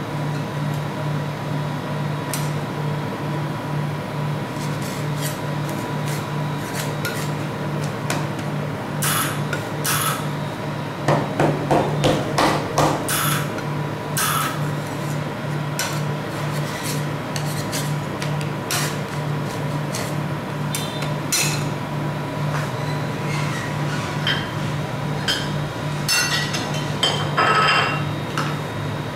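Metal spatula scraping and knocking on a frozen steel ice-cream plate as the ice cream is rolled up and scraped off, with a run of sharp clicks and taps. There are louder clusters of taps about eleven seconds in and again near the end, over a steady low hum.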